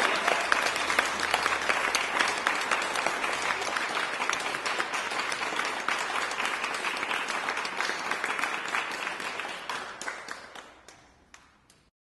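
Many people applauding. The clapping thins to a few scattered claps and dies away about ten seconds in.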